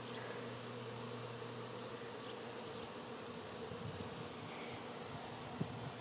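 A honey bee swarm in flight, thousands of bees giving a steady hum; the swarm is still airborne and has not yet clustered on a branch. One brief tick near the end.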